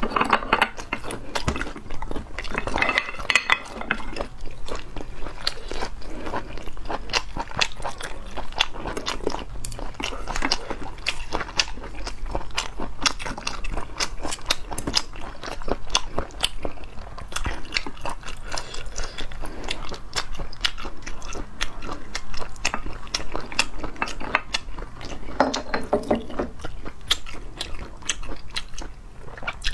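Chewing of sea snail meat: a dense run of wet mouth clicks, with chopsticks and shells clicking against the plate and sauce cup now and then.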